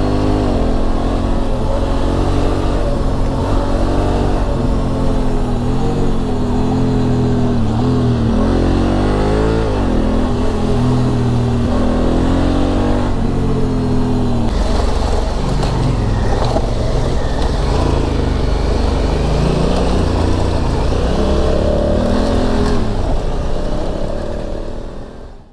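Adventure motorcycle's engine heard from the rider's seat while riding, its pitch rising and falling as the throttle opens and closes and gears change, over a steady rush of wind and road noise. The sound fades out near the end.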